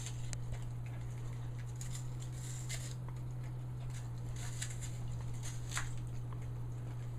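A puppy biting and crunching on an apple held in a hand, in short irregular crunches, over a steady low hum.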